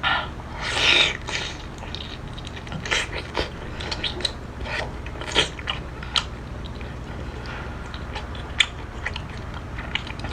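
Close-up eating sounds: a person biting and chewing a crunchy mouthful, with irregular crisp crunches and wet mouth clicks.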